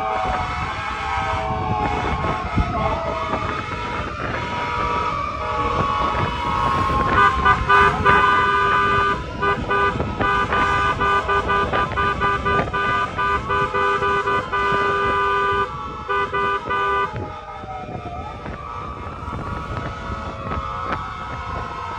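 Fire truck sirens wailing, several overlapping and rising and falling in pitch, over the rumble of engines. From about seven seconds in until about seventeen seconds in, vehicle horns honk over them in many short, quick blasts.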